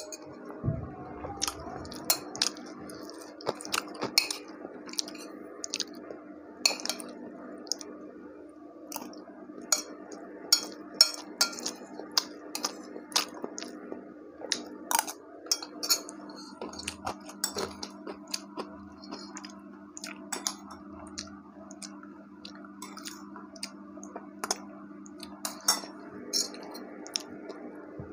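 A metal spoon clicking and scraping against a ceramic bowl many times at irregular intervals, with chewing between the strokes, over a steady low hum.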